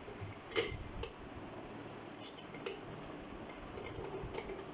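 Scattered light clicks and taps of a small screwdriver and a heat-gun holder bracket being screwed onto the side of a soldering station's case. The sharpest click comes about half a second in.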